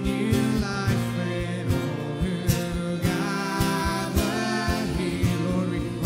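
Live worship band playing a slow song: guitar, a drum kit with cymbal hits keeping the beat, and a male voice singing.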